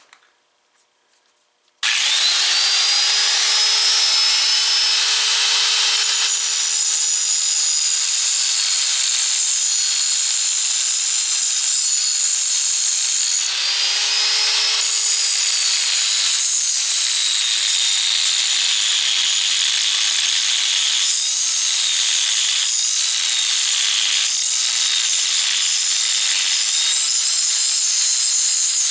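Angle grinder switched on about two seconds in, spinning up with a rising whine, then grinding steadily against the weld that fixes the axle nut to the ATV axle. Its pitch sags under load, rises again briefly about halfway through, then settles back.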